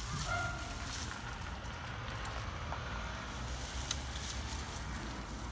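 Dry leaf litter and twigs rustling and crackling under two black cats scuffling together, with a few sharp clicks, over a steady low rumble.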